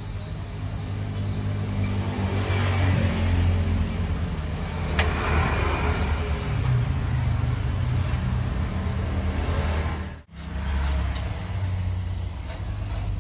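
A motor vehicle engine running steadily, its pitch shifting up a little partway through, with a sharp click about five seconds in.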